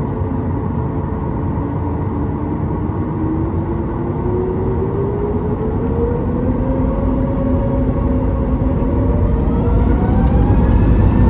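Boeing 737 MAX 9's CFM LEAP-1B turbofan spooling up for take-off, heard from inside the cabin. A steady low rumble carries a whine that starts rising in pitch about three seconds in and keeps climbing, the whole sound growing louder toward the end.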